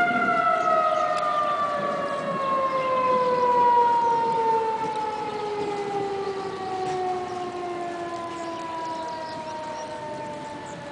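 Tornado warning sirens winding down: the held wail begins to fall in pitch right at the start and keeps sliding slowly lower while fading.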